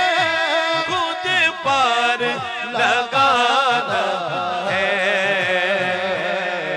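Male naat reciter singing a long, wavering melismatic line of an Urdu devotional naat, ending on a steady held note. Low repeated pulses run underneath about three times a second and stop near the end.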